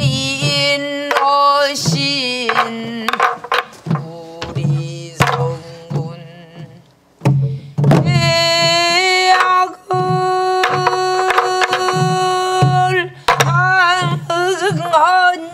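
A woman singing in Korean traditional pansori style, holding long notes with wide vibrato and sliding between pitches, while beating a sori-buk barrel drum with a wooden stick: low thumps on the drumhead and sharp clicks on the wooden rim keep a steady rhythmic cycle under the voice.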